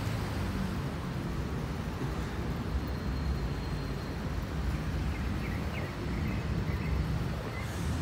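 Steady road traffic noise from the avenue: a continuous low rumble of passing vehicles, with a few faint high chirps near the end.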